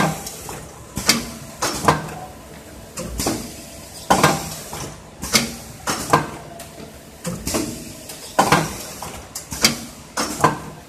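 Automatic shrink-film sleeve sealing machine cycling: sharp metallic clacks about once a second from its air-driven pushers and sealing bar, over a faint steady machine hum.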